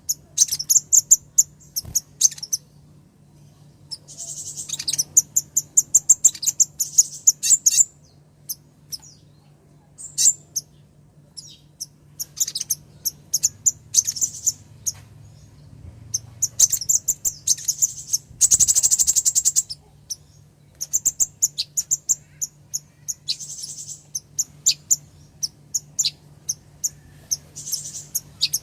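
Female brown-throated sunbird (kolibri ninja) calling: repeated bursts of rapid, high, ticking chirps, with one fast, dense trill lasting about a second roughly two-thirds of the way through.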